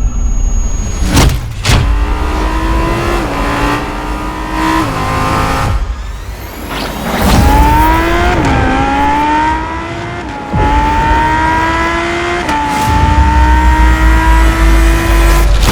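Lamborghini Huracán Performante's naturally aspirated V10 accelerating hard through the gears. Its note climbs steadily, then drops back at each upshift, about five times. There are brief sharp swells of noise near the start and about halfway through.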